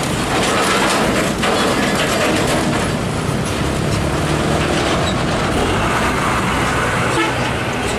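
Heavy diesel trucks driving past close by: a long flatbed semi-trailer rig, then a Mitsubishi Fuso truck loaded with motorcycles. Engines running with tyre and road noise, and a few clicks and rattles.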